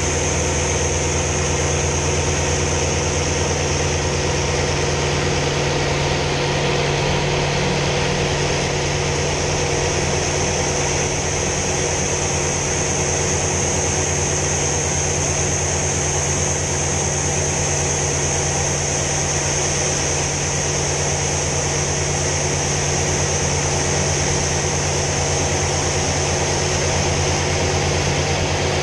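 Hawker Sea Fury T20's radial piston engine and propeller running steadily in flight, heard from inside the cockpit, with a steady high hiss over the engine note.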